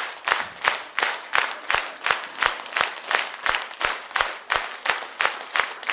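Audience clapping in unison, a steady rhythm of about three claps a second.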